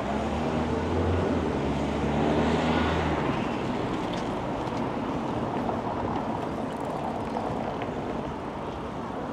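City street traffic: a motor vehicle's low engine hum for the first three seconds, then a steady wash of passing cars.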